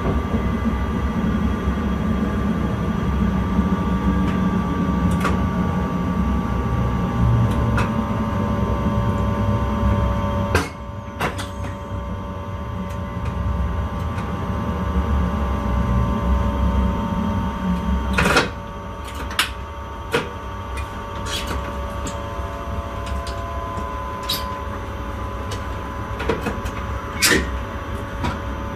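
Intercity train heard from the driver's cab: steady running noise with a low rumble and a faint steady whine, broken by scattered sharp clicks. The rumble drops away about eighteen seconds in, leaving a quieter hum.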